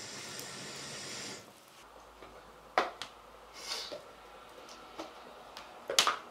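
A steady hiss that cuts off abruptly about a second and a half in, then scattered sharp clicks and knocks of tableware, such as chopsticks and dishes at a hearthside meal, with the loudest pair near the end.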